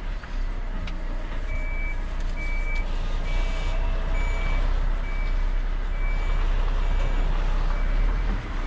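Volvo truck's reversing alarm beeping at an even pace, a little more than once a second, starting about a second and a half in, over the steady low rumble of the truck's diesel engine.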